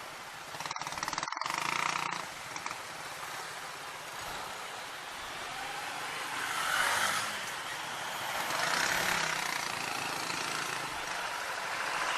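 Riding noise from a small motorcycle moving through traffic: wind rush on the microphone and the hum of the engine and surrounding vehicles, swelling and easing a few times as the bike and other traffic pass.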